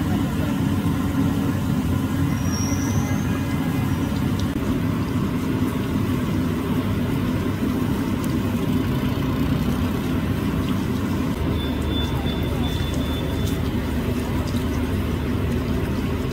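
Oil bubbling in a deep fryer around breaded sandwiches, under a steady low rumble.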